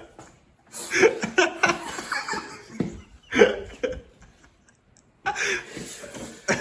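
People laughing in bursts, with a lull of about a second in the middle before the laughter picks up again.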